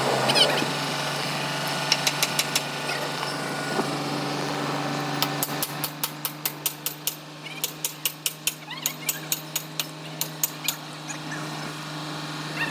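An engine running steadily. From about five seconds in, a quick, evenly spaced series of sharp knocks, about three a second, lasts for several seconds.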